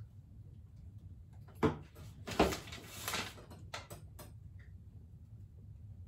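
A sheet of paper being picked up and unfolded: a light knock about one and a half seconds in, then about a second of crinkling paper, followed by a few small clicks.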